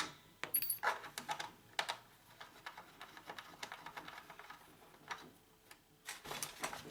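Scattered light clicks and taps of hard plastic and metal parts being handled while an oxygen generator is dismantled, with a few sharper clicks about half a second and a second in, and a cluster near the end.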